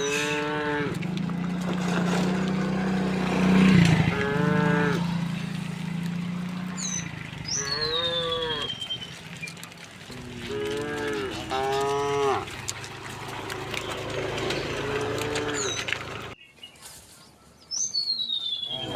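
A herd of cattle mooing, one call after another, with several cows calling in turn. One long, low moo runs through the first few seconds.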